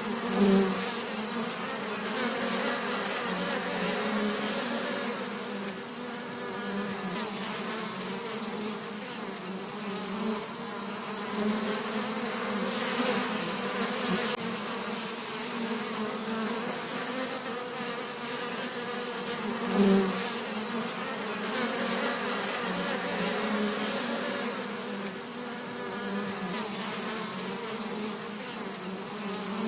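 Bees buzzing in a steady, continuous drone, swelling briefly louder just after the start and again about two-thirds of the way through.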